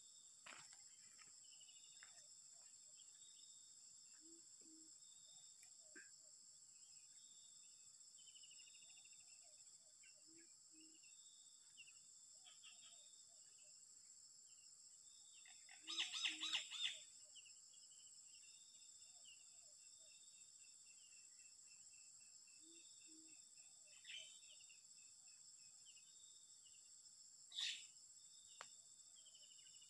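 Spotted dove (tekukur) cooing, a short low call repeated about every six seconds, faint over a steady chorus of crickets and small birds chirping. About halfway through, a louder crackly burst lasts about a second.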